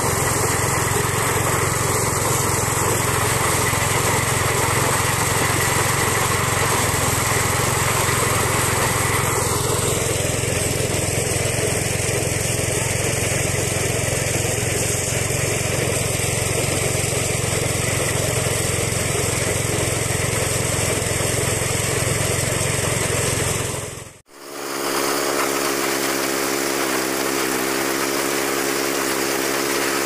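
An engine running steadily. About 24 seconds in, the sound breaks off abruptly and gives way to an engine with a steady, evenly pitched hum.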